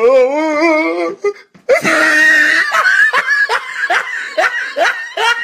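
A person laughing hard: a drawn-out wavering laugh for about a second, then, after a short break, loud rapid hoarse bursts of laughter.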